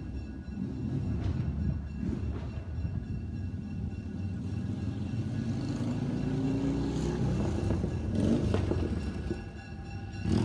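A train passing with a steady low rumble.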